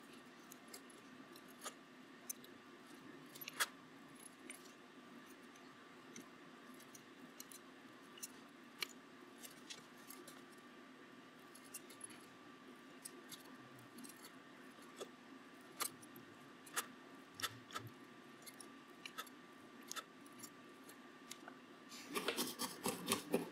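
Scattered small clicks and taps from hand-soldering pin sockets onto a circuit board: the iron tip and board being handled, over a faint steady hum. A quick flurry of louder clatter comes near the end.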